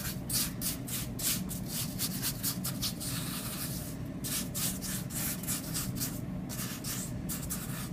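A spoon stirring and scraping through wet sand in a plastic tray, in quick repeated strokes, about three or four a second, mixing the water down into the sand.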